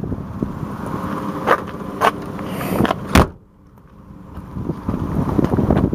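Rear doors of a 2003 Chevrolet Astro van being shut: a couple of light knocks, then one loud slam a little after three seconds in.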